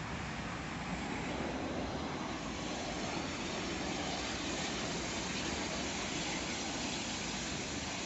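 Oxygen-fed fire at a burning oxygen supply shed, giving a steady rushing noise that stays even, with no separate bangs.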